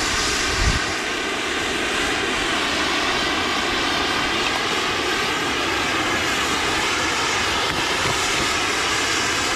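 Skis sliding and scraping over packed, chopped-up snow at slow speed, a steady rushing hiss, with a faint steady hum underneath.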